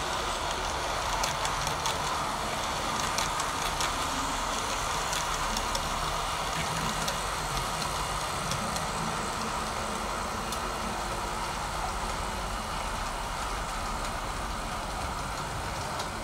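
H0m-scale model of the RhB Albula articulated train running along the layout's track: a steady whirr of the motor and wheels, with scattered light clicks.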